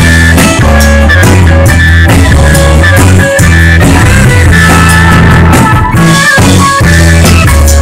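Live rock band playing loud: electric guitar, bass guitar and drum kit together, with a heavy bass line under the guitar.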